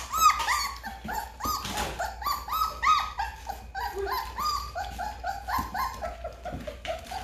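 Three-week-old Great Bernese puppies (Great Pyrenees × Bernese Mountain Dog) making a steady run of short, high squeaks and whimpers, several a second, as they lap milk from a steel puppy saucer.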